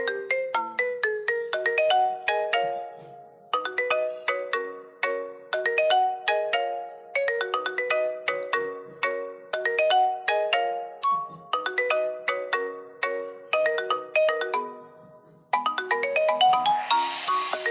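Marimba ringtone: a quick melody of short, ringing mallet notes played in repeating phrases, with brief breaks about three and a half seconds in and again near the end. In the last couple of seconds a bright hissing wash joins the notes.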